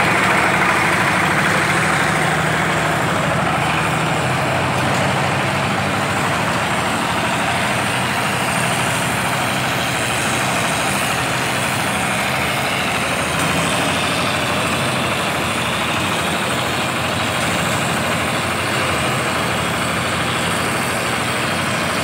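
Alfan Gen 1 cement plastering machine running steadily at high pressure, its motor and pump pushing mortar through the spray hose onto the wall.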